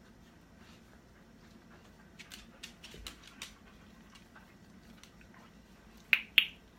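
A dog's small mouth and collar sounds: light ticks and clicks as she takes treats through her collar, then two sharp clicks close together near the end.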